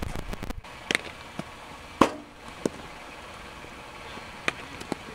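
Sharp knocks of baseballs in a catcher's blocking drill, the loudest about two seconds in, with fainter clicks before it and two more near the end.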